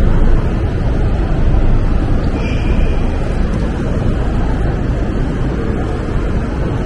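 Steady low rumble of downtown street traffic, with a brief faint high tone about two and a half seconds in.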